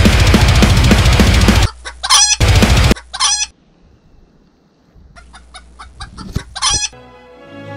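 Loud heavy rock music cuts off suddenly, followed by a rooster crowing in short calls and chicken clucking. Near the end, gentle orchestral string music begins.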